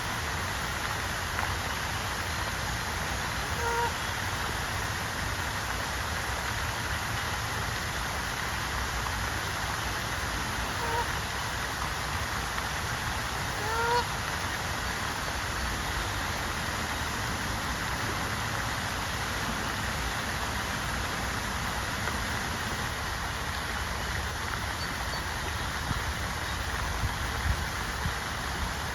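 Canada geese honking: three short calls about 4, 11 and 14 seconds in, the last rising slightly in pitch, over a steady hiss of moving water and wind.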